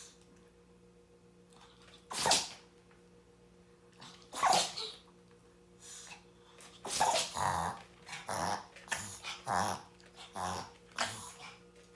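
Pomeranian sneezing: two sharp sneezes about two seconds apart, then a quicker run of about seven more sneezes, roughly two a second.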